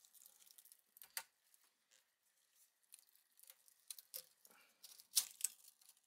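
Pliers pulling and cutting enamelled copper wire out of an electric-motor stator, with faint rustling of loose wire and a few sharp clicks and snaps, the loudest about five seconds in. This is the burned-out starting winding being stripped out before rewinding.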